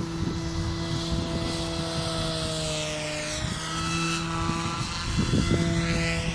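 SAB Goblin Fireball electric RC helicopter in flight: a steady rotor hum with higher whining tones that dip in pitch around the middle and rise again near the end as it moves across the sky.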